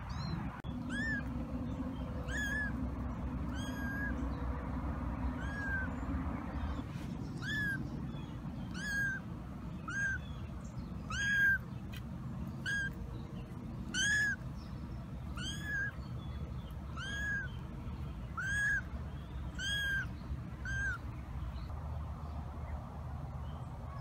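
A three-week-old kitten mewing over and over: short, high, rising-then-falling mews about every second and a half, which stop a few seconds before the end.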